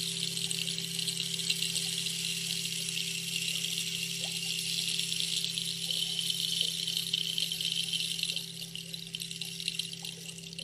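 Steady low hum of a singing bowl still ringing from an earlier strike, under a high, watery hiss that thins about eight seconds in.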